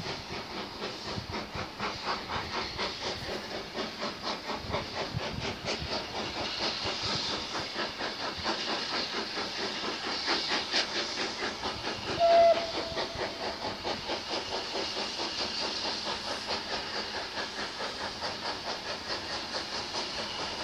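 Steam locomotive working toward the listener, its exhaust chuffing in a steady beat of about three a second with steam hiss. About twelve seconds in, the whistle gives one short blast.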